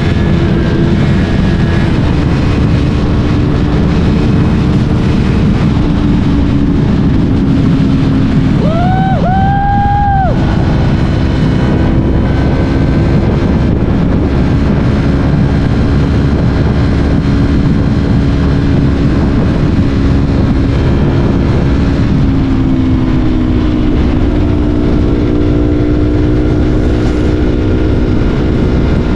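Yamaha R3's parallel-twin engine running steadily under way, its note dipping slightly in the middle and rising a little near the end, with wind rumble over the microphone. About nine seconds in, two short rising tones sound over it, like a vehicle horn.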